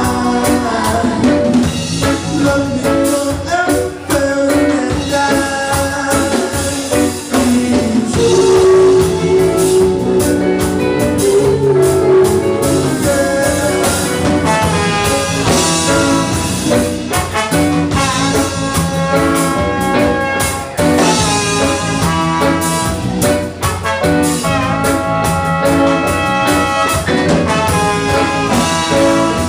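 Jazz-style music with brass instruments playing over a drum kit.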